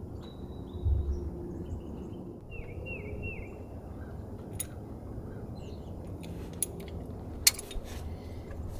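A songbird calling: a short whistled note, then three quick downward-slurred notes in a row. A few sharp clicks of hand tools come through, the loudest about three-quarters of the way in.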